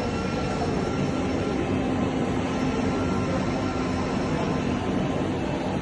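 Tea and coffee vending machine running with a steady motor hum over a rushing noise; the hum is a little stronger in the middle.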